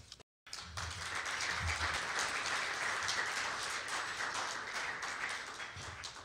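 Audience applauding, starting after a brief dropout at the very beginning and tapering off near the end.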